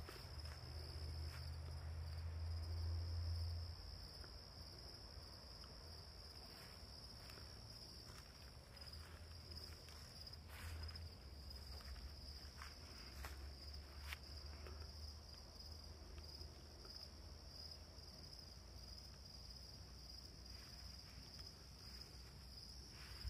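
Crickets chirring in a steady, unbroken high-pitched trill. Underneath is a faint low rumble, loudest in the first few seconds, and a few faint clicks.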